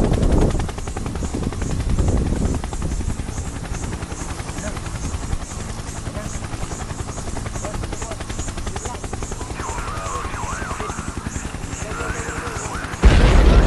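Helicopter flying over, its rotors chopping steadily. A sudden loud burst cuts in near the end.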